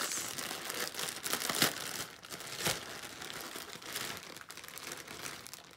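Clear plastic bag crinkling as it is handled and pulled open, with a couple of sharper crackles about one and a half and two and a half seconds in.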